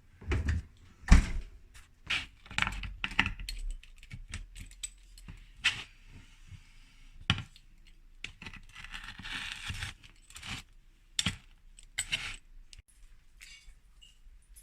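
Kitchen handling noises as a pizza is slid onto a metal oven rack: a run of separate metallic clinks, rattles and knocks, the heaviest thud about a second in, with a short rustle near the middle.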